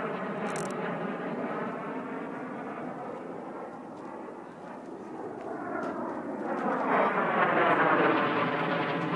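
Fighter jet flying overhead: continuous jet engine noise with a sweeping, phasing sound as it passes. It dips a little near the middle, then swells to its loudest over the last few seconds.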